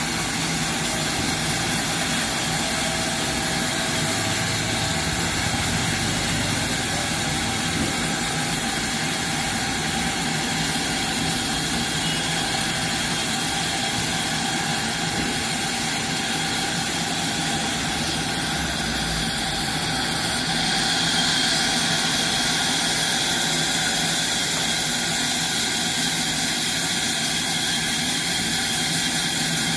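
Large sawmill band saw running steadily as a thick mahogany plank is fed through the blade, a loud continuous machine noise. A higher whine comes in about two-thirds of the way through.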